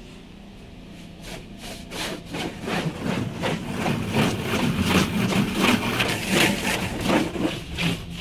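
Car wash water jets from an in-bay automatic spraying over the car, heard from inside the cabin. It is a rhythmic swishing, about three strokes a second, that grows louder from about a second in, over a steady machine hum.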